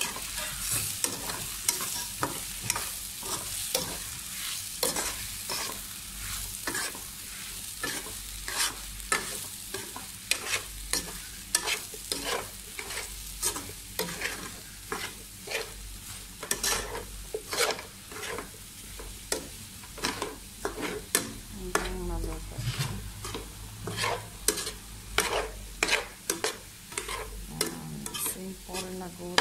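Bitter gourd and egg frying in oil in a pan, a steady sizzle broken by many irregular clacks and scrapes of a spatula stirring against the pan.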